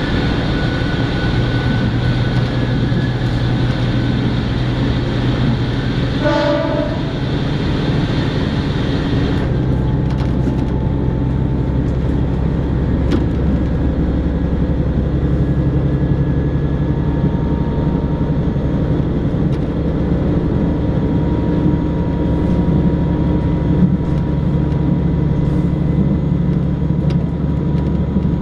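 Diesel local train heard from inside the passenger car, running with a loud steady rumble of engine and wheels on rail. About six seconds in a short horn blast sounds; a few seconds later the louder, hissier noise drops away as the train leaves a tunnel, and it runs on steadily in the open.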